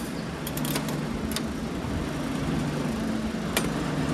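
Chrome crank of a coin-operated bouncy-ball vending machine being turned, giving a cluster of sharp metal clicks, then single clicks about a second and a half in and near the end as the ball comes out of the chute. A steady low machine hum runs underneath.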